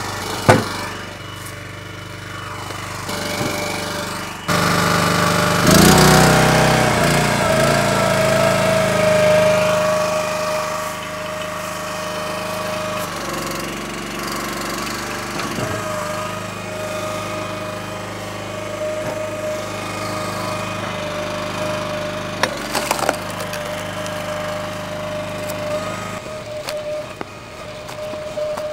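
Split-Fire 3490 log splitter's gas engine running steadily with a high whine. It gets louder about four seconds in, and its note dips and recovers a couple of seconds later. A few sharp knocks come along the way.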